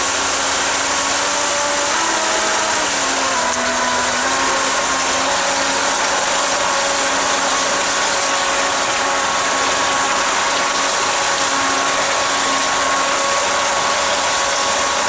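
Electric motor driving a jet-surfboard jet drive pump, running under load: a whine over the loud rush of churning water. The pitch steps up and down a few times in the first few seconds as the throttle is changed, then holds steady.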